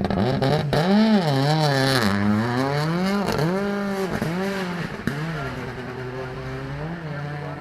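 Performance car engine revving up and down repeatedly, its pitch rising and falling about once a second, then settling to a steadier, quieter run near the end.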